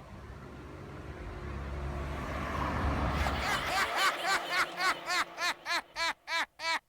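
A low rumbling noise swells, then about three seconds in gives way to a fast run of repeated electronic chirps, each rising and falling in pitch, that speed up and turn choppy near the end, leading into intro music.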